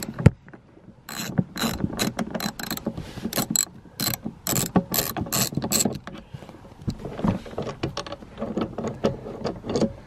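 Socket ratchet with a T50 Torx bit clicking in quick runs as it undoes a seat belt's lower anchor bolt at the floor, the bolt coming loose; the clicking stops about six seconds in, leaving fainter handling sounds.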